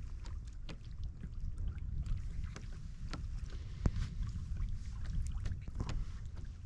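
Wind buffeting the microphone as a steady low rumble, with scattered light clicks and rustles; the sharpest click comes about four seconds in.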